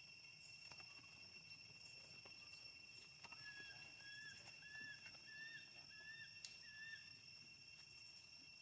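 Faint outdoor ambience with a steady high drone of insects. In the middle comes a run of six short, evenly spaced animal call notes, a little over half a second apart.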